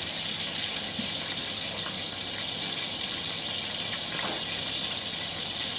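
Kitchen tap running steadily into the sink while hands are rinsed.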